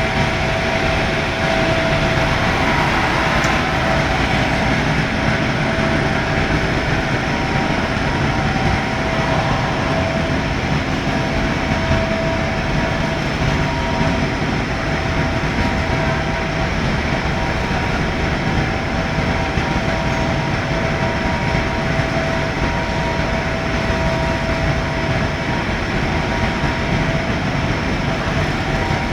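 Furnace running: a steady rumble with a constant hum over it, unchanging throughout.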